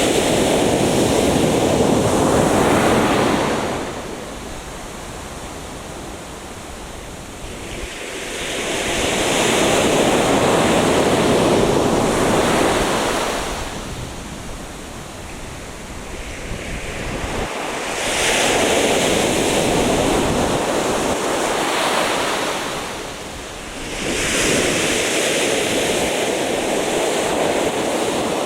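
Atlantic Ocean surf breaking on a beach. It comes in four surges, each swelling for a few seconds and then easing into a quieter wash before the next wave.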